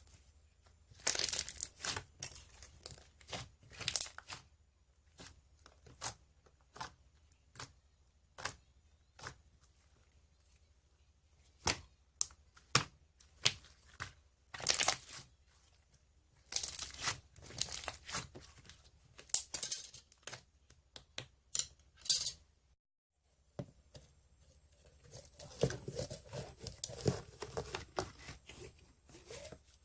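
Slime being squeezed, stretched and poked by hand: irregular sticky crackling and sharp little pops and clicks as air pockets burst, with a denser stretch of squishing near the end.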